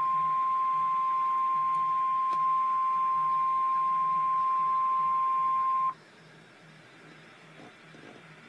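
Emergency alert tone: one steady, high-pitched tone of the kind NOAA Weather Radio sounds (its 1050 Hz warning alarm tone) before a National Weather Service warning. It cuts off suddenly about six seconds in, leaving faint hiss.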